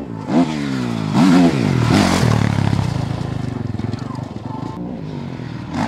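Motocross bike engine under hard throttle, its pitch climbing and dropping several times in the first two seconds as the rider accelerates and shifts, then running steadier with a pulsing beat.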